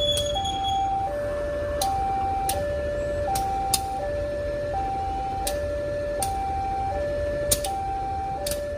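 Railway level-crossing warning alarm sounding a two-tone high-low signal, a higher and a lower tone each held a little under a second, warning that a train is coming. A low rumble runs under it, and a few sharp clicks fall among the tones.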